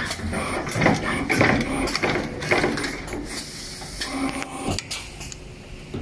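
Automatic multi-core thimble crimping machine running: a quick, irregular series of mechanical clacks and clicks from its moving slides and crimping heads, busiest in the first half and thinning out after about three seconds.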